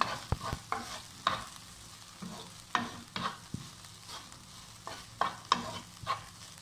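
A spatula scraping and knocking against a nonstick frying pan in quick, irregular strokes while stir-frying chopped okra, with a light frying sizzle underneath.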